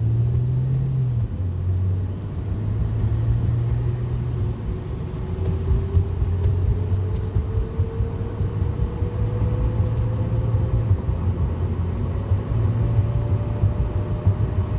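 A car's engine and exhaust rumble under light acceleration, with a thinner, higher whine that rises slowly and steadily in pitch as the car gathers speed. The whine comes only while the engine is pulling at low speed. A shop put it down to worn engine mounts letting the engine hit the subframe.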